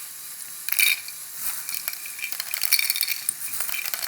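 Small plastic LEGO rock pieces clattering in bursts of rattling clicks as they are tipped into and churned by a LEGO Technic bucket wheel excavator.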